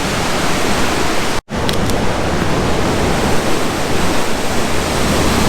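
Steady roar of rushing water from a waterfall, a loud even hiss with no break except a brief dropout about a second and a half in.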